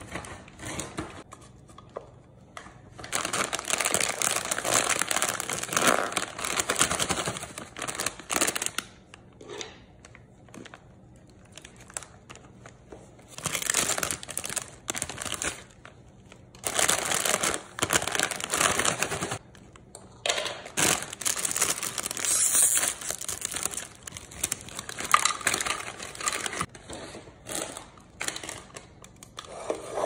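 Crinkling of a plastic snack bag being handled and tipped as chips are shaken out into a plastic platter. It comes in several stretches of a few seconds each, with short pauses between.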